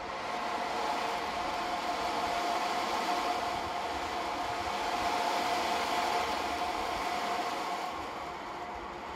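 Ocean drum, a frame drum with loose beads inside, tilted slowly so the beads roll across the drumhead: a steady rushing wash with a ringing tone in it, swelling a little about five seconds in and easing near the end.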